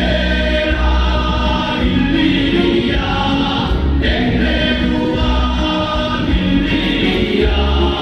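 Amplified stage music: a group of voices singing together over an instrumental backing with a deep bass.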